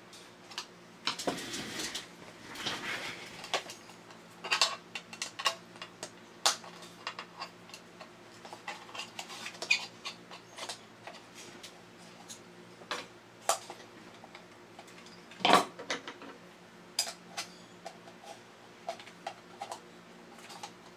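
Small metal clicks, taps and scrapes as needle-nose pliers work the bent metal tabs and parts of a tin toy robot's head, with a longer scrape near the start and one louder click about two-thirds of the way through. A faint steady hum runs underneath.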